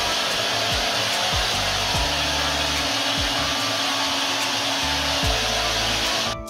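Electric mini chopper's motor running steadily under the hand pressing its top, blending mango pulp with milk and sugar. It cuts off suddenly near the end.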